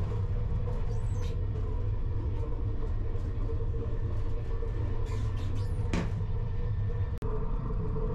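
Steady low rumble and hum of a TGV Duplex high-speed train running at speed, heard from inside the train, with a few brief high chirps. The sound drops out for an instant about seven seconds in.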